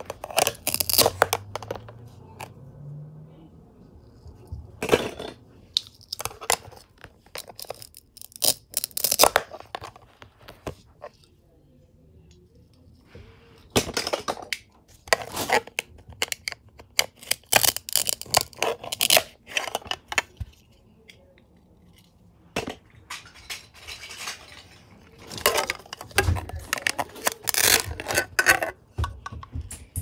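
Velcro on toy plastic fruit and vegetables ripping apart as a plastic toy knife cuts through the pieces on a plastic cutting board. Several spells of short crackly rips and plastic clacks come with quiet gaps between.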